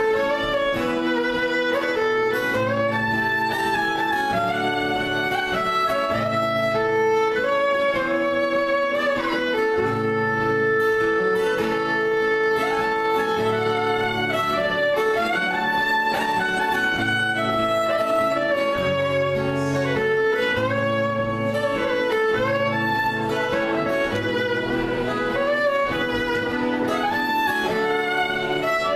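A fiddle tune on violin: quick bowed melody notes over a low chord accompaniment that changes about every second.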